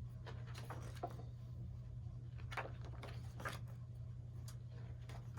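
Pages of a large photobook being turned and handled, with short paper rustles and light knocks every second or so, over a steady low hum.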